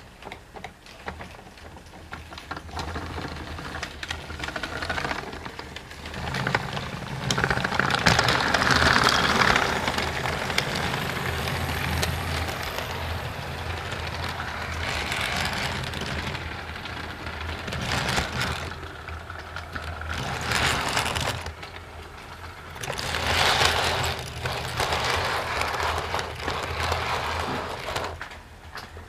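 HO-scale model train running past on the track: a steady small-motor hum with the wheels rattling on the rails, growing louder as the cars pass close, once about a third of the way in and again later.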